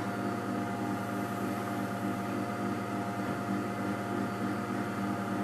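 Steady electrical hum with a faint hiss above it, from a running kitchen appliance.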